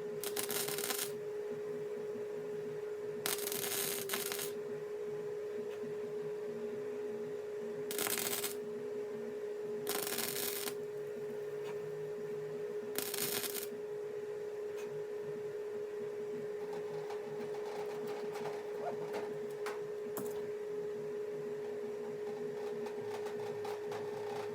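Welder laying short stitch or tack welds on thin 18-gauge sheet-steel patch panels: five brief bursts of welding noise, each about a second or less, in the first half. A steady hum runs underneath.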